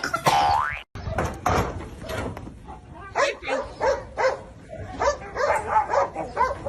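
A dog vocalizing: a rising whine or yelp in the first second, then, after a sudden cut, a run of short barks and yips.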